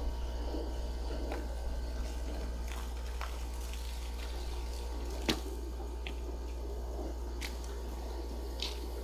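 Soapy water running and dripping from a foaming car-wash brush and its hose, over a steady low hum, with a sharp click about five seconds in.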